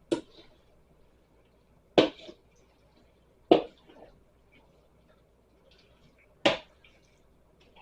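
A kitchen utensil knocking against a pan of pasta: four sharp strikes with short ringing tails, a second or more apart, some followed by a lighter second tap.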